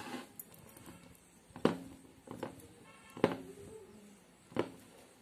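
Crumbled paneer stuffing being mixed by hand in a bowl, with three sharp clinks against the bowl about a second and a half apart, each ringing briefly.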